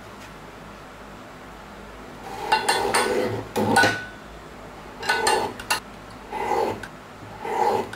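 Lever-arm guillotine paper cutter chopping through printed paper sheets, about five short crunching cuts with metallic clanks of the blade arm, starting about two and a half seconds in.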